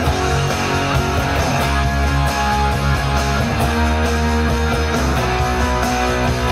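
Les Paul-style electric guitar playing a rock part over a backing track, with a steady drum beat and bass underneath.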